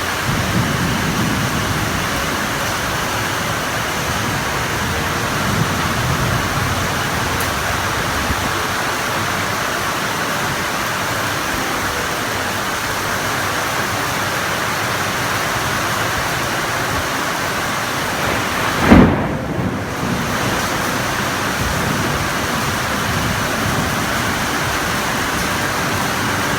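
Heavy rain pouring down in a steady, dense hiss. About two-thirds of the way through there is a single short, loud, low thump.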